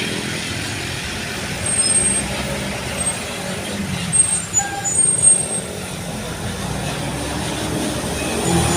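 Road traffic passing close by, a large bus going past with a steady engine and tyre rumble. It swells twice near the middle, with a few short high squeaks.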